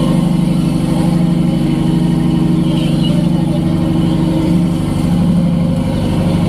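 A workboat's engine running steadily at a constant speed, an unbroken drone with no change in pitch.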